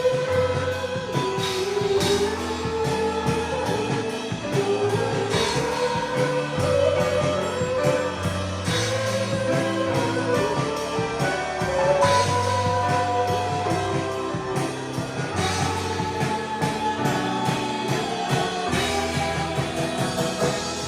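Live worship band playing a slow song with guitar, bass and drum kit, with a singing voice over it.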